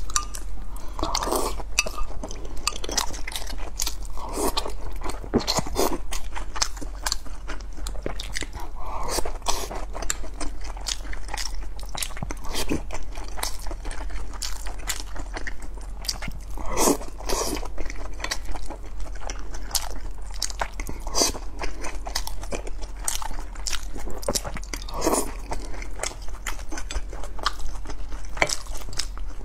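Close-miked chewing and biting of soft boiled dumplings dipped in vinegar, with many wet mouth clicks and smacks.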